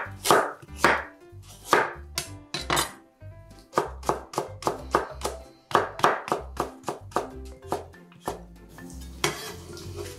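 Chef's knife cutting a carrot into thin strips on a wooden cutting board: a run of crisp knife strikes, about three a second, over soft background music. Near the end the blade scrapes the cut strips together across the board.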